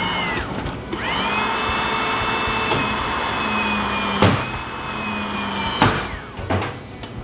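A high-speed power tool motor spins up to a steady whine with a rushing noise. Its pitch sags slightly as it runs, two sharp knocks come partway through, and it winds down near the end. A brief spin-up and spin-down comes at the very start.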